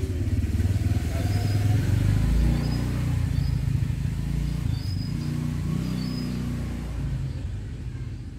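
A motor engine running nearby, its low rumble swelling about two seconds in and then slowly fading.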